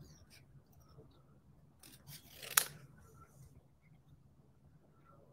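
Small paper snips cutting paper by hand in short, faint snips while fussy cutting a small stamped shape, with one sharper, louder snip about two and a half seconds in.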